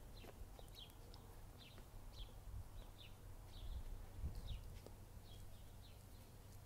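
A small bird chirping faintly, a string of short falling chirps roughly twice a second, over a low room rumble.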